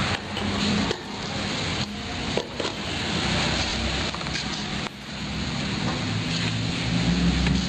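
LG twin-tub washing machine running on test after its wash motor has been replaced: a steady rush of water churning in the wash tub over a low motor hum.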